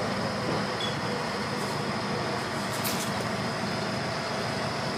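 Electric S-Bahn train rolling past along a station platform, a steady rumble with a faint high whine, and a couple of short clicks about three seconds in.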